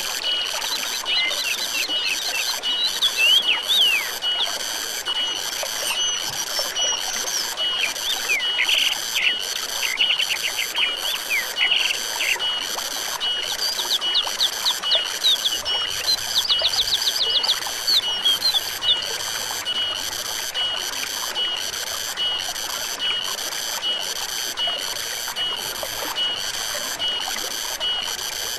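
Forest soundscape: running water hisses steadily under a high insect chorus that pulses evenly, about one and a half beats a second. Small birds give quick chirps and trills through the first two-thirds.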